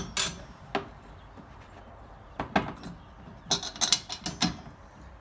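Scattered knocks and clunks of wheelbarrow leg pieces and bolts being handled and lined up for bolting. A quick run of several knocks comes a little past the middle.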